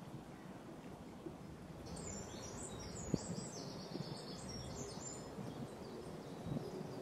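A small songbird singing a quick run of short, high chirping notes for a few seconds, over steady faint outdoor background noise, with a single light click partway through.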